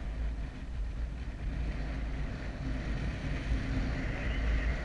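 Wind noise on the microphone of a paraglider in flight: a steady low rumble of rushing air.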